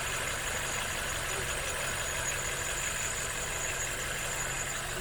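Hyundai i10 petrol engine idling steadily, the idle still running a little high, with a faint steady high-pitched whine over it.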